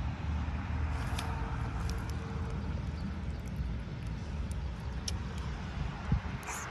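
Steady low rumble with a faint hiss above it and a few light clicks.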